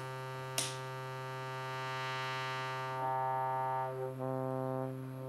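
Circuit-bent Yamaha PSS-30 toy keyboards (the Peanut-1) holding a buzzy, organ-like drone through the added filter, with a click just after it starts. The tone brightens and dulls again around two seconds in as the filter is swept, and the notes change about three and four seconds in.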